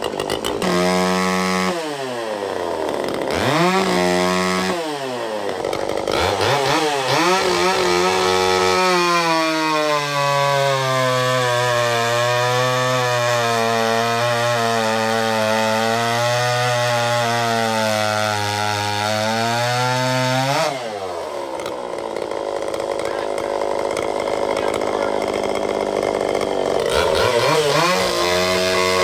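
Pioneer P41 66cc two-stroke chainsaw with its muffler baffle removed, blipped up and down several times, then held under load cutting through a large log on a steady, slightly lower note. About twenty seconds in it breaks free and runs at full revs, then drops back to a few revving blips near the end.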